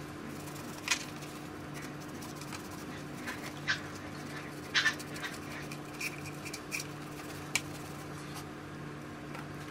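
Paper towel damp with rubbing alcohol wiping and rubbing around a plastic gauge housing: faint scattered rubbing scrapes and light handling clicks, with a short high squeak about six seconds in, over a steady low hum.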